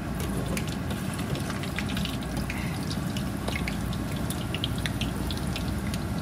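Whole-wheat puri deep-frying in hot ghee: a steady sizzle with many scattered sharp crackles and pops as the dough puffs up in the fat.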